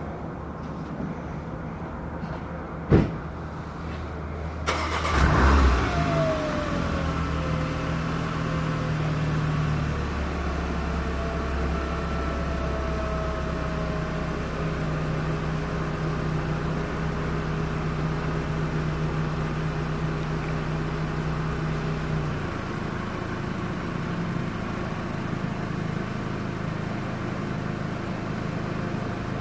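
A sharp knock, then the 2021 Porsche Macan S's turbocharged V6 cold-starts about five seconds in with a brief rev flare and a falling whine. It settles into a high cold-start idle, which drops to a lower idle a little past twenty seconds in.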